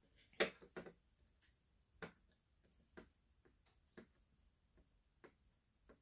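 Faint light clicks of acrylic rhinestone drills being picked up with a wax pick pen and tapped onto a diamond painting, about one a second.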